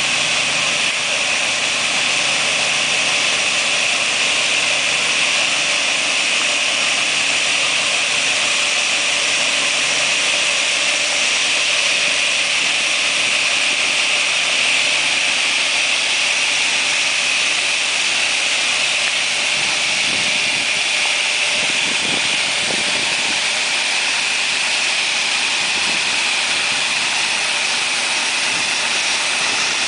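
Mini tractor's engine running steadily while driving a tractor-mounted spray pump, with the continuous hiss of the boom nozzles spraying.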